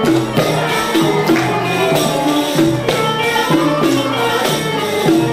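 Turkish classical music ensemble playing an instrumental passage in makam hicazkar, with stringed instruments carrying the melody over steady hand-drum percussion.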